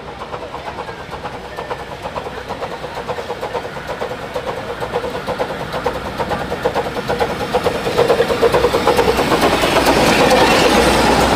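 Miniature park-railway steam locomotive chuffing rapidly as it hauls its passenger carriages along the track, growing louder as it approaches and passes.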